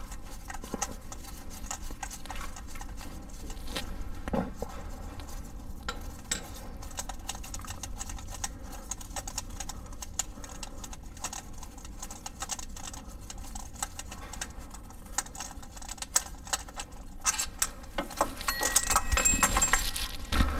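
Light, irregular metallic clicks and taps as the loosened 13 mm bolt of an idler pulley is turned out by hand and the pulley is worked off its mount, with a busier run of clicks and clinks near the end.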